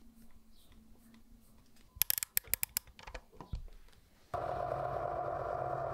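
A quick run of small, sharp metallic clicks as tiny watch parts are handled at the watchmaker's lathe collet. About four seconds in, the lathe's motor and spindle start up and run steadily.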